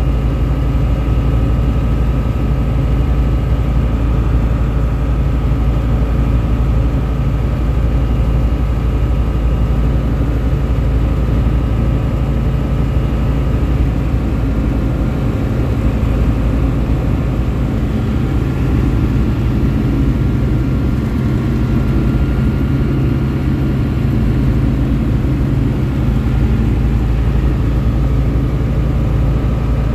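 Tecnam P2002 light aircraft's Rotax 912 four-cylinder engine and propeller droning steadily, heard inside the cockpit on final approach.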